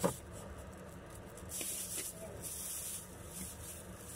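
Thin plastic bag rustling and crinkling as it is handled, after a short knock right at the start.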